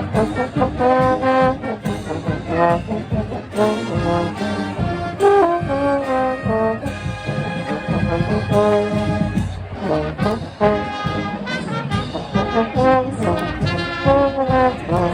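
Marching band playing loud brass chords over drums: trombones and trumpets in short, punchy changing phrases, with a brief break about ten seconds in.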